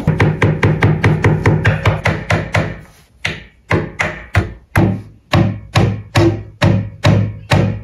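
Background music made of short, sharp struck notes in a steady beat, quick at first and then about half as fast from about three seconds in.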